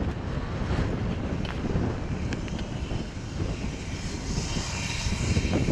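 Steam locomotive running light past at speed: a steady rumble of the engine and its wheels on the track, with a few short clicks and a higher hiss coming in about four seconds in.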